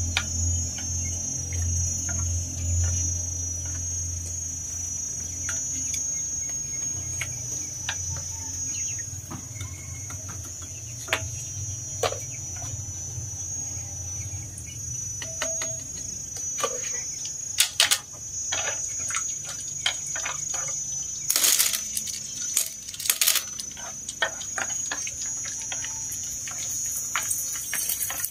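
Shrimp crackers frying in hot oil in a metal wok, with chopsticks clicking and scraping against the pan, the loudest knocks coming in the second half. A steady high insect trill runs underneath.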